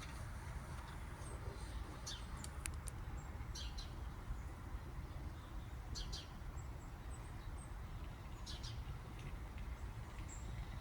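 Small birds giving short, high chirping calls every couple of seconds over a steady low rumble.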